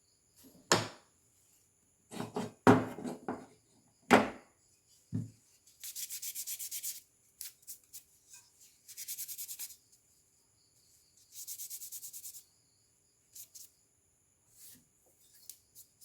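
A few sharp knocks as graphics card parts are handled, then three short bursts of quick rubbing, about a second each, like old thermal paste being wiped off the card.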